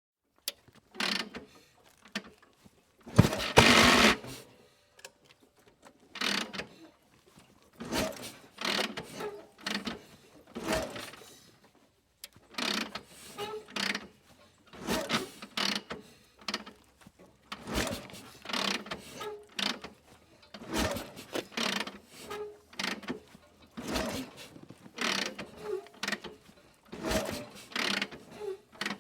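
A vehicle's gear lever being shifted with the engine off: a series of short, irregular mechanical clicks and clunks, with a louder, longer clunk about three seconds in.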